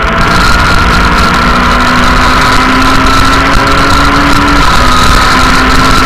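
Rally car engine heard from inside the cabin while driving a stage. Its pitch climbs slowly and dips about four and a half seconds in, with a steady high whine and loud road and wind noise over it.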